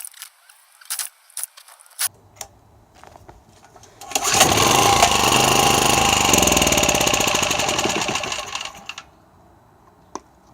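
Small gasoline portable generator engine, primed with a squirt of gas in the carburetor after sitting unused since last year, catching and running for about five seconds before dying down. A few sharp clicks and knocks come before it starts.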